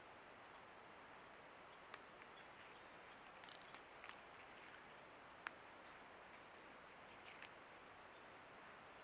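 Faint, steady high-pitched trilling of insects in the woods, pulsing fast and without a break. A few faint clicks sound over it, the sharpest about five and a half seconds in.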